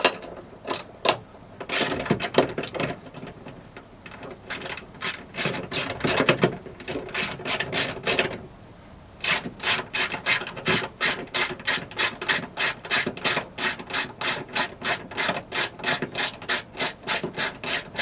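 Ratchet with a 10 mm deep socket clicking as a nut is unscrewed: uneven clicks at first, then an even run of about three to four clicks a second from about halfway through.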